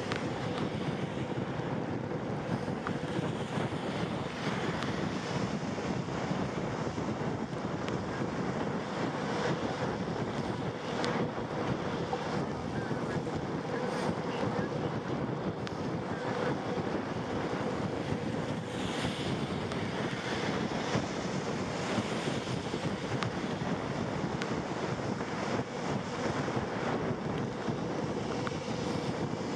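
Steady wind noise on the microphone over constant road noise, with a faint steady hum underneath, from riding a bicycle.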